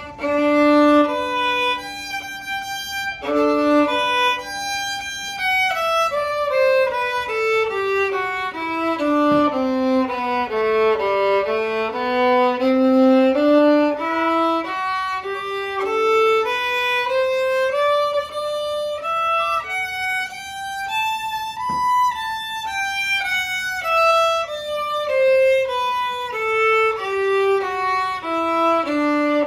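A solo violin playing long stepwise runs, one note at a time: a long low note at the start, then a run down to the bottom of the instrument, back up, and down again.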